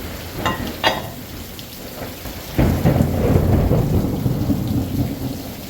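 Heavy rain falling, and a clap of thunder about two and a half seconds in that breaks into a long, loud low rumble. Two sharp clicks come within the first second.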